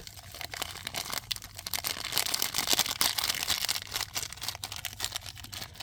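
Crinkling and rustling of a plastic tastemaker (masala) sachet as it is opened and emptied, with many small clicks and ticks.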